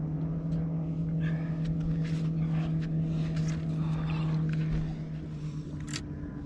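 Steady electric hum of a bow-mounted trolling motor running on a bass boat, with scattered short clicks and knocks of rod and line handling and a sharp knock about six seconds in.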